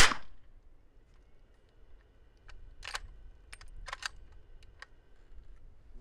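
One subsonic 300 Blackout round fired from an 8-inch bolt-action rifle through a Thunder Beast Dominus-K suppressor: a single sharp suppressed report that dies away within about half a second. About two and a half seconds later comes a quick run of metallic clicks and clacks as the bolt is worked to chamber the next round.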